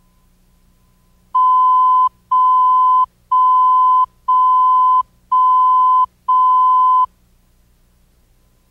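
Video countdown-leader beeps: six identical steady, high-pitched electronic tones, each just under a second long, repeating once a second as the leader counts down.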